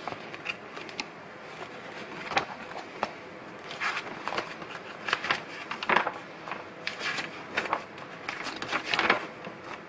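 Pages of a handwritten recipe book being turned by hand: a run of irregular paper rustles, swishes and light flaps.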